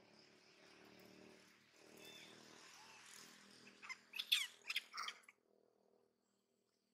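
A quick run of short, sharp, high-pitched squeaks, about six in a second and a half, each sliding down in pitch, over a faint background hiss.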